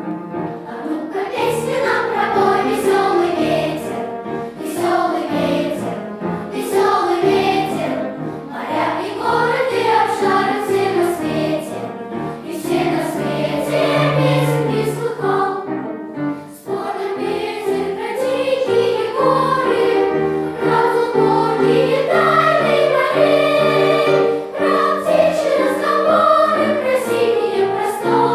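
Children's choir singing a song together, with piano accompaniment.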